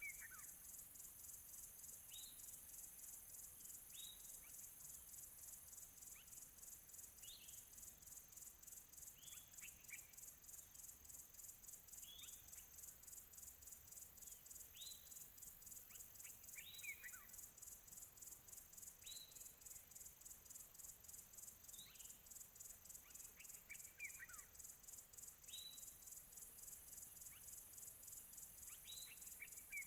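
Faint nature recording: a steady, high-pitched insect chorus pulsing rapidly, with a bird repeating a short, falling whistled note about every two seconds.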